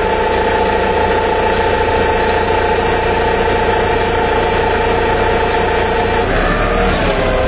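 TCM forklift running: a steady whine over a low engine hum. The whine bends and shifts in pitch about six and a half seconds in, then settles again.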